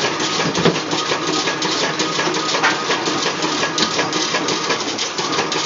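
Automatic incense stick making machine with a stick auto feeder running: a steady mechanical clatter of rapid, even clicks as it cycles.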